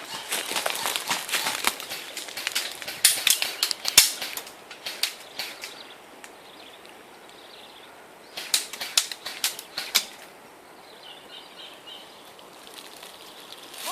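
Airsoft guns firing: irregular sharp snaps in clusters, first over the opening few seconds, again around three to four seconds in, and again around nine seconds, with quiet stretches between.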